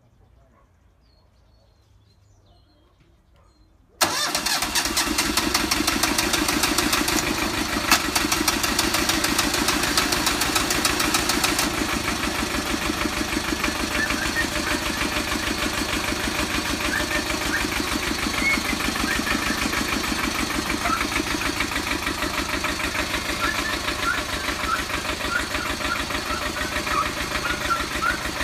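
Small homemade tractor's engine starting suddenly about four seconds in, then running steadily.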